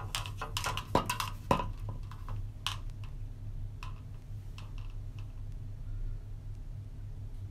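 A cluster of sharp clicks and taps in the first two seconds, then a few fainter ones, over a steady low hum.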